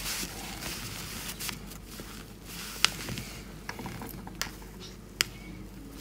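Quiet rustling of a paper pattern piece and fabric being handled and lined up on a table for pinning, with a few sharp little taps.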